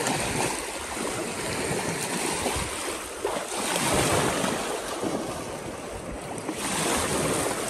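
Water splashing and churning as a golden retriever paddles out through shallow lake water, over lapping waves and wind on the microphone.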